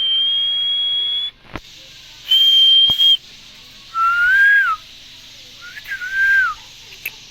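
Green parrot whistling four clear notes. The first two are long, steady and high; the last two are lower, each rising a little and then dipping at the end. There are a couple of faint clicks between them.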